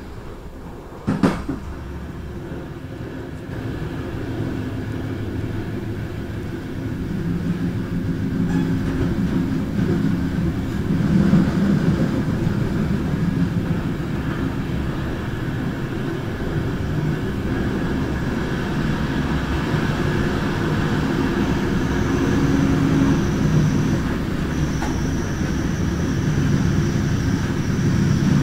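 Passenger train running on a mountain railway, heard from its rear door: a steady rumble of wheels on the rails, with one sharp knock about a second in. A faint high whine joins in the last few seconds, and the noise grows louder near the end as the train enters a tunnel.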